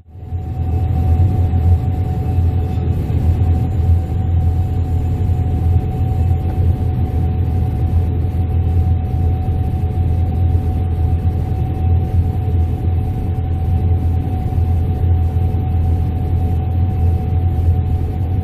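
Gleaner S98 combine running steadily while harvesting: a heavy, even low rumble with a steady whine above it.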